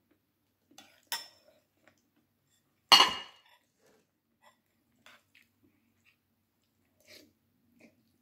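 Eating utensils clinking against dishes: a sharp clink about a second in and a louder one about three seconds in that rings briefly, with faint small clicks between.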